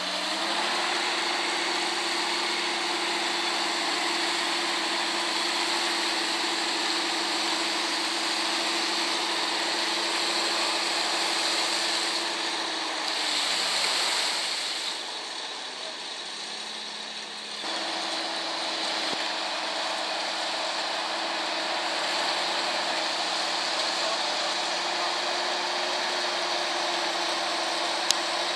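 Off-road 4x4 engine running at steady raised revs, with the pitch stepping up about half a second in. The hum falls away around thirteen seconds in, then a noisier stretch follows. The steady engine note returns abruptly a few seconds later.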